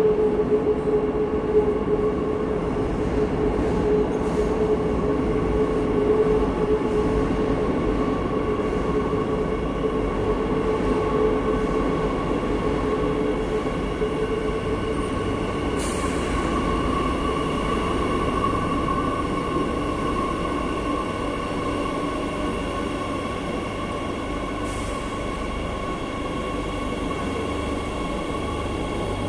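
Madrid Metro train arriving at an underground station and drawing up alongside the platform, a steady rumble with a high whine. A lower tone in it fades out about halfway through.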